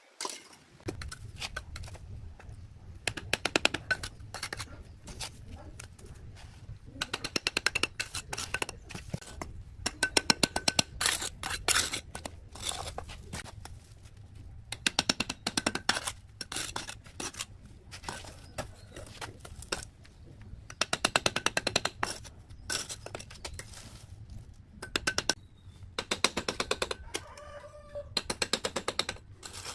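A steel bricklaying trowel scraping mortar and tapping bricks as they are bedded. The sound comes in repeated bursts of rapid clicks and scrapes lasting a second or two, over a steady low hum.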